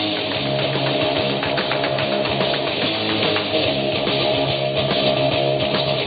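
Background music led by electric guitar, over a steady low bass line.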